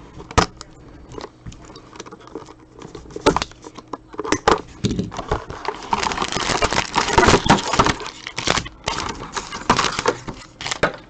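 Trading-card box and pack packaging being handled and torn open: scattered snaps and clicks, then a stretch of dense crinkling and rustling in the middle.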